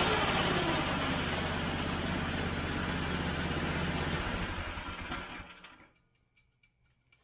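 Cycle kart's small gas engine idling steadily, then shut off about four seconds in and running down to a stop by about six seconds.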